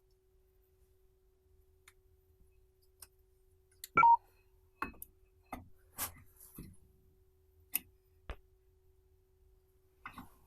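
Brake caliper being handled and fitted over the brake disc: a loud metallic clank with a short ring about four seconds in, then scattered clicks and knocks of metal parts.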